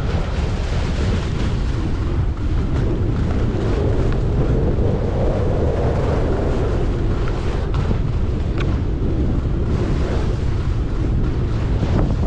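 Wind buffeting the microphone as a skier descends at speed, with skis hissing and scraping over firm, chopped-up snow.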